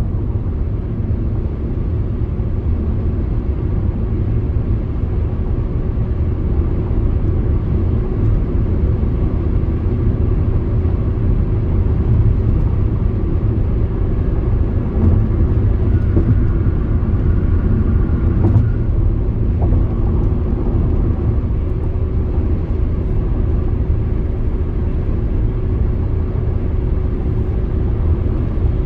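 Car driving at a steady speed: a constant low rumble of road and engine noise, as heard from inside the cabin.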